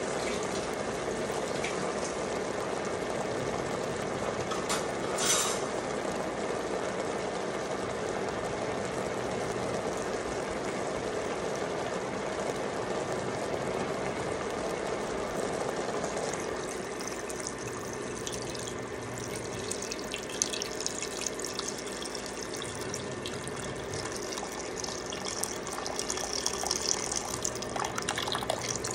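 Pork cooking in an enamelled cast-iron pot with a steady hiss that turns to scattered crackling partway through. Near the end, water is poured into the pot from above, splashing onto the meat.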